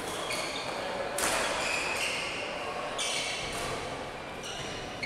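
Badminton rally: rackets strike the shuttlecock with sharp clicks a few times, and court shoes squeak in short high chirps on the hall floor.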